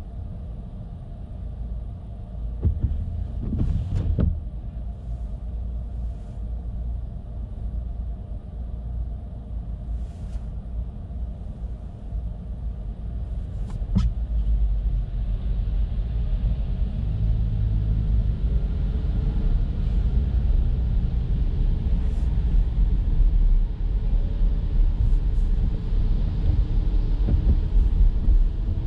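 Road and tyre rumble of a Chevrolet Bolt electric car driving on wet city streets in light rain, with no engine note. It grows louder about halfway through, with more hiss of tyres on wet pavement, and a sharp tick sounds once at about the same point.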